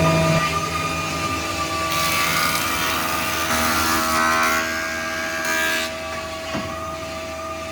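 Poaloni S515 thickness planer running with a steady whine. For about four seconds in the middle a louder hiss joins in, then cuts off sharply.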